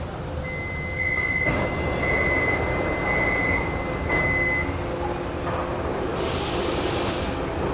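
Metro train doors sliding open at a station with their warning chime: four high-pitched beeps at one pitch over a faint steady tone, with a knock as the doors start to move and another near the last beep. A short hiss follows near the end, over the low hum of the stopped train.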